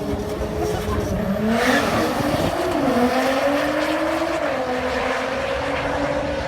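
A car engine revving hard, its pitch rising and falling, with tyres squealing, a burst of noise starting about a second and a half in.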